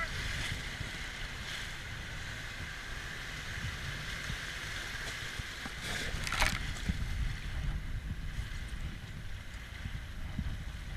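Rio Grande river water running steadily around a raft, with wind rumbling on the microphone. A brief high-pitched sound cuts through about six and a half seconds in.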